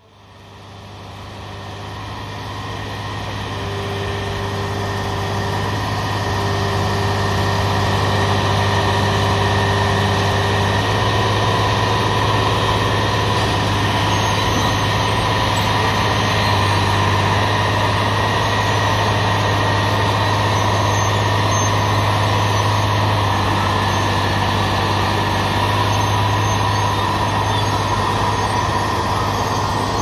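Diesel engine of a crawler-mounted railway track-laying machine running steadily: a deep, even engine hum with a faint whine above it, fading in over the first few seconds.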